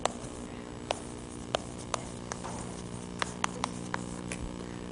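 Chalk tapping against a blackboard while words are written: about ten sharp, irregular clicks over a steady low hum.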